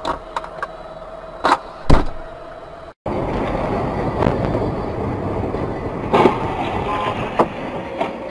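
Several sharp knocks and one heavy thump about two seconds in, then after a short dropout a steady rumbling road noise with a few clicks.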